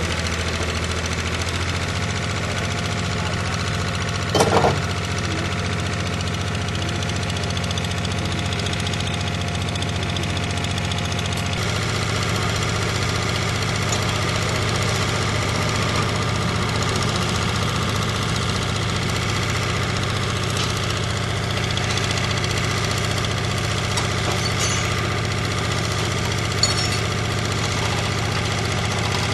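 An engine idling steadily, with a brief louder bang about four and a half seconds in.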